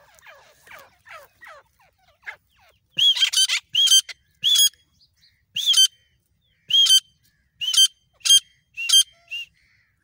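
Grey francolin calling: a run of about ten loud, sharp, high-pitched notes repeated about once or twice a second, after a couple of seconds of soft, quick falling notes.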